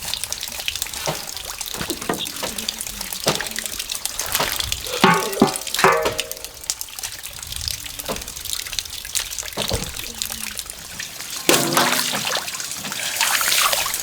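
Water splashing and trickling in short, irregular splashes, with a brief pitched sound about five seconds in and another near the end.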